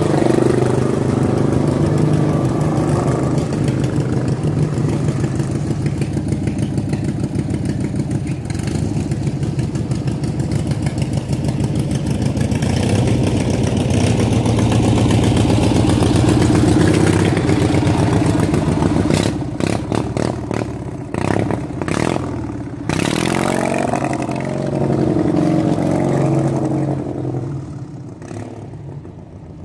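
Small riding lawn tractor engine running, its speed rising and falling as the tractor drives off across mud. A few sharp clattering knocks come about two-thirds of the way through, and the engine fades near the end as it moves away.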